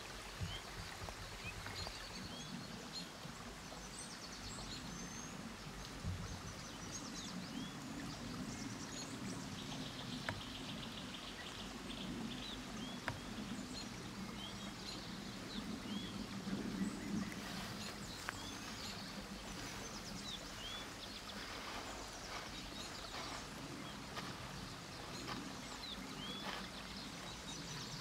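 Steady rush of a nearby river under small birds chirping now and then in short calls, with a few faint clicks here and there.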